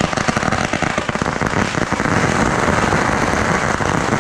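Fireworks crackling: a dense, continuous rain of rapid small pops.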